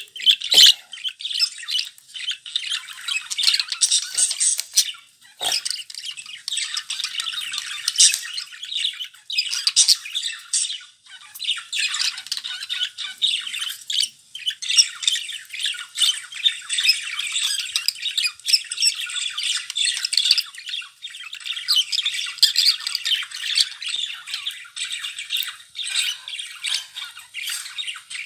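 Budgerigars chattering continuously: a dense run of short, high chirps and squawks with only brief pauses.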